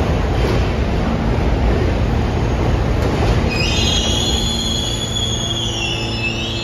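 Pullman Standard R46 subway cars rolling past with a low rumble; about three and a half seconds in, a high squeal of several tones sets in from the wheels and dips in pitch near the end.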